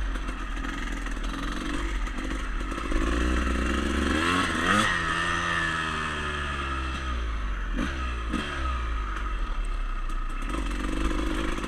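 Honda CR250 two-stroke dirt bike engine running during a ride. It revs up sharply about four seconds in, then its pitch falls away over the next few seconds, over a steady low rumble. There are a couple of short knocks a few seconds later.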